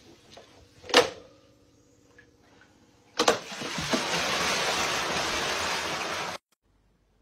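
A sharp knock, then a splash and a steady rushing pour as a plastic basin of wet grain feed and water is tipped into a fish pond; the pour cuts off suddenly.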